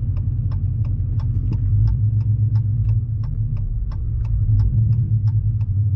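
Dodge Challenger R/T Scat Pack's 6.4-litre HEMI V8 idling with a low, steady rumble. A light ticking repeats evenly about three times a second.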